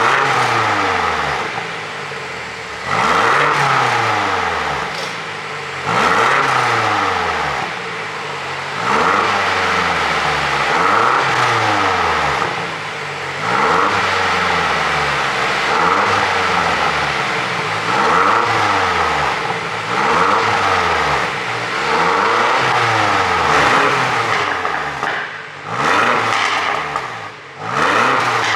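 BMW X6 M's twin-turbo V8 revved again and again, about once every two to three seconds, each rev rising and dropping back, with the pops and crackles of a pop-and-bang tune as the revs fall. The blips come a little quicker near the end.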